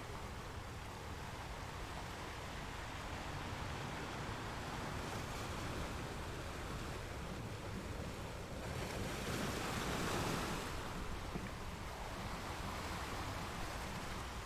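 Sea waves breaking and washing on a shore in a steady surf hiss, one wave swelling louder about two-thirds of the way through.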